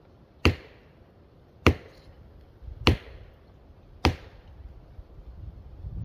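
Axe chopping into a tree trunk: four heavy, evenly spaced blows, about one and a quarter seconds apart, each with a short ringing tail.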